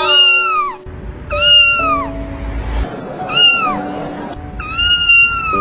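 Kitten meowing four times, high-pitched calls that each rise briefly and then fall away, with faint background music underneath.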